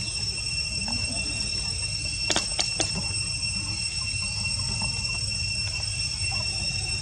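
Steady high-pitched insect drone over a low rumble, with a quick cluster of three or four sharp clicks about two and a half seconds in.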